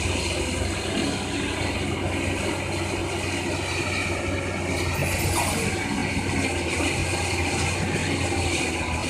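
Caterpillar 320C excavator's diesel engine running steadily under work, with a low hum and some mechanical clatter from the machine.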